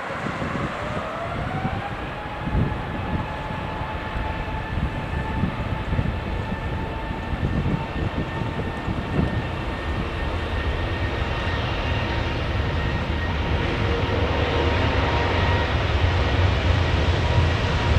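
Airbus A350 turbofan jet engines spooling up: a whine rises in pitch over the first couple of seconds and then holds steady, while a low rumble builds and the sound slowly grows louder through the second half.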